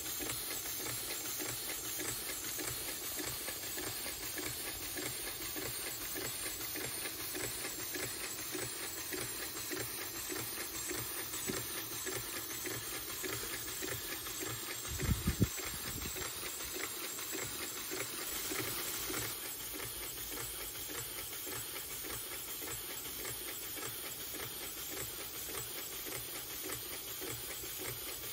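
3D-printed Grasshopper beam engine running on compressed air: a steady hiss of exhausting air with rapid chuffing and light mechanical clatter. A brief low thump comes about halfway through.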